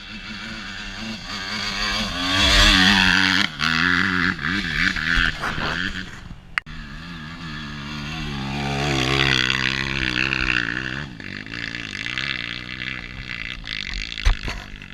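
Off-road dirt bike engines revving hard and unevenly as they climb a steep hill. The revs surge in two loud bursts, a couple of seconds in and again near the middle, with the pitch rising and falling in between.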